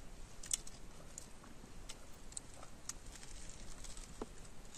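Faint, scattered small clicks and crunches of a toasted cheese sandwich being bitten and chewed.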